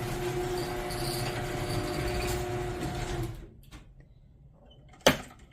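Craftsman belt-drive garage door opener running as it lowers the door: a steady hum with a low, even tone, which stops a little past three seconds in. A single sharp knock follows near the end.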